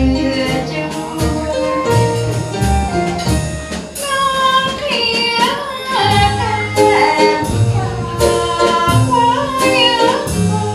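A woman singing a Thai song live into a microphone, backed by a small acoustic band of electric keyboard, upright double bass and flute. Her voice is most prominent from about four seconds in.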